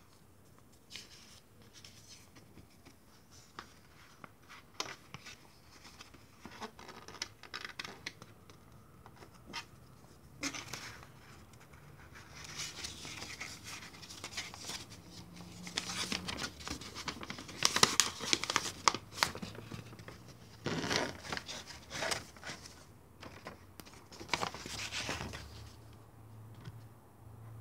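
Paper rustling and crinkling as printed installation-guide leaflets are handled and a fold-out sheet is opened out, in scattered bursts that grow louder and busier in the second half.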